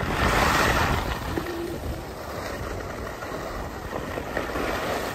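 Skis sliding and scraping over packed, groomed snow, with a louder scrape in the first second and then a steady hiss, mixed with wind rushing on the microphone.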